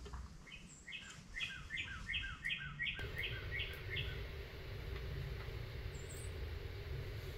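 A songbird singing a quick series of about ten repeated notes, roughly three a second, over the first four seconds, followed by a single brief high chirp about six seconds in, over faint steady outdoor background noise.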